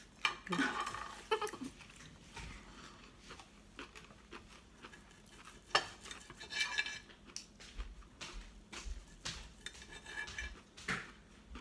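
Knife and fork clinking and scraping on a ceramic dinner plate while a piece of roast beef is cut, in scattered light clicks and short scrapes.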